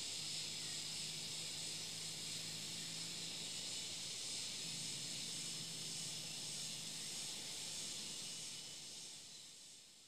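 A steady high-pitched hiss with a faint low hum beneath it, fading out near the end.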